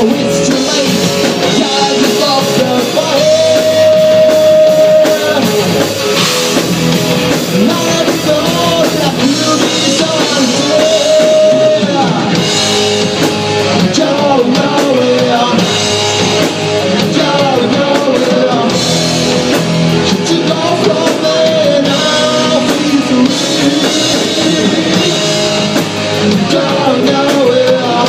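Live rock band playing: distorted electric guitar, bass guitar and drum kit, with sung vocals holding long notes over them.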